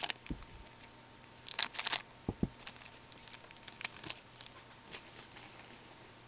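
Trading cards and their packaging being handled: a brief crinkly rustle about one and a half seconds in, a couple of soft knocks, then scattered light ticks and shuffling that fade out.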